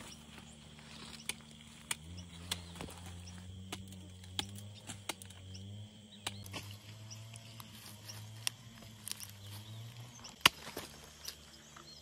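Scattered snaps, cracks and rustles of cassava plants being pulled and cut by hand, with one sharp crack near the end. A steady high-pitched drone runs under it, and a low hum comes in about two seconds in and fades out about two seconds before the end.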